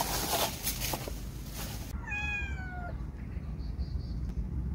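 A cat meows once, about two seconds in: a single drawn-out call that falls slightly in pitch. Rustling comes before it.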